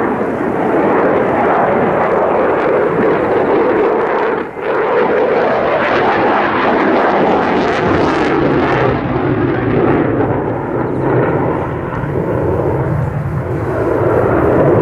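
JASDF F-15 fighter's twin jet engines in a loud, continuous roar during a display manoeuvre. The noise dips briefly about four and a half seconds in and turns harsher about eight seconds in.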